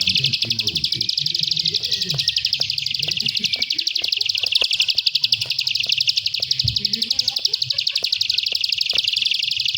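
Plain prinia giving its fast, high-pitched chattering trill without a break, the excited 'fighting' call.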